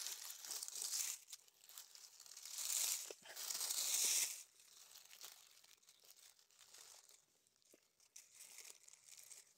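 Dry oak leaves and pine needles crackling and rustling as the leaf litter is pushed aside by hand. The loudest stretch of crackling comes about three to four seconds in, then it turns to fainter, scattered rustles.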